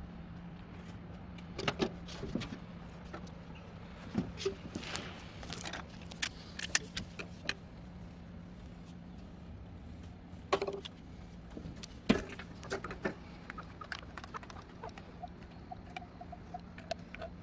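Irregular light clicks and knocks over a steady low hum, with the sharpest knocks about two, ten and twelve seconds in; near the end comes a short run of faint, quick, repeated high notes.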